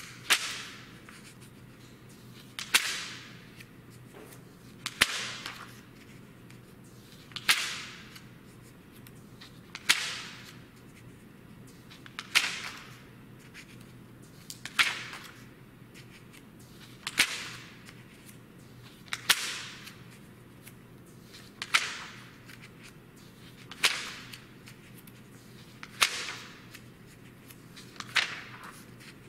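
Pages of a print magazine being turned one after another: a paper swish and flap about every two and a half seconds, each one sharp at the start and quickly fading.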